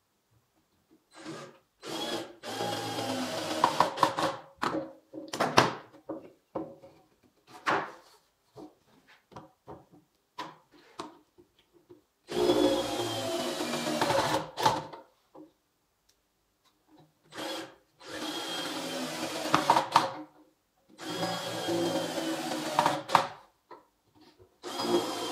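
Cordless drill-driver driving screws into pine boards, in several runs of one to three seconds with silent pauses between, each run ending in a few sharp knocks as the screw seats.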